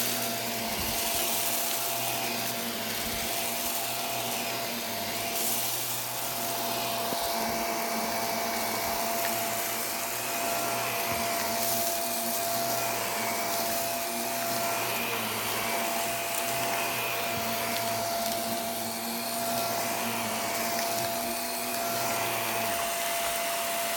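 Shark vacuum cleaner running steadily, its motor giving a constant high whine over a rushing air noise during a mess pick-up test.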